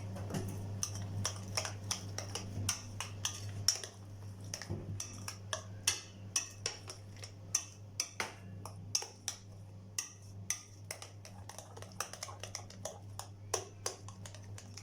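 A metal spoon clinking and scraping against a bowl as thick plantain and flour batter is stirred, with irregular clicks about once or twice a second over a steady low hum.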